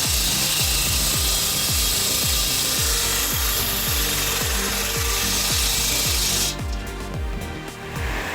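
A power saw cutting through wood, under background music with a steady thumping beat. The saw noise drops away about six and a half seconds in and comes back near the end, while the beat goes on.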